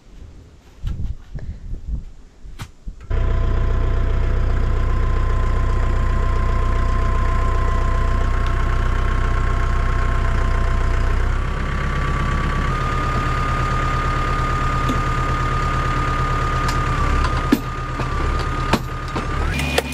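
Tractor engine running steadily with a steady whine, powering a tractor-mounted hydraulic fence-post driver. It starts suddenly after a few quiet seconds of light knocks. About two-thirds through, the whine steps up slightly in pitch, and a couple of sharp knocks come near the end.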